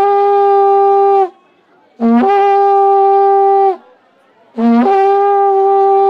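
A traditional horn is blown in three long blasts with short pauses between them. Each blast starts on a brief low note and jumps up to a loud held higher note, then cuts off.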